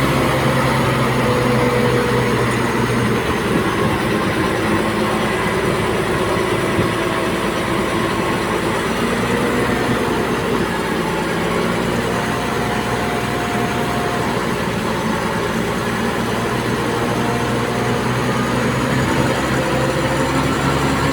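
Diesel engine of a Komatsu D58P crawler bulldozer running steadily while it works, its pitch drifting slightly up and down, with a rise near the end.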